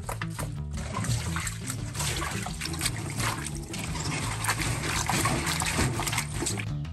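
Tap water running and splashing into a steel bowl as hands swish and rinse bunches of small green onions, over background music.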